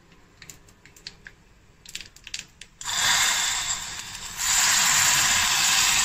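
Hot ghee tempering of mustard seeds, dried red chili and cumin poured from a small tempering ladle into rasam in a stone pot, starting to sizzle suddenly about three seconds in. The sizzle eases briefly, then comes back louder and holds. A few faint clicks come before it.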